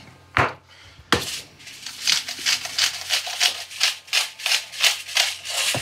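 Hand pepper mill being twisted over the food: a run of short, gritty grinding strokes, about three a second, after a single sharp knock about half a second in.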